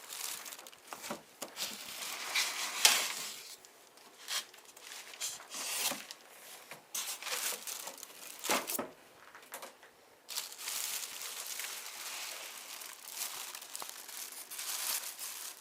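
Packaging crinkling and rustling in irregular bursts, with a few sharp crackles, as a printer is lifted out of its box and unwrapped.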